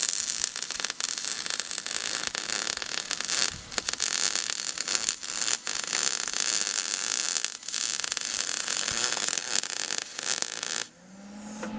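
Wire-feed welder arc crackling and hissing steadily while a weld bead is laid, stopping suddenly near the end when the arc is broken.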